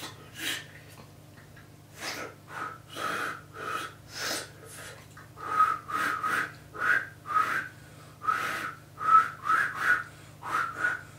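A learner's attempts at a finger whistle: short, airy blows through the fingers, many catching a brief whistle note. They are sparse at first and come about twice a second in the second half.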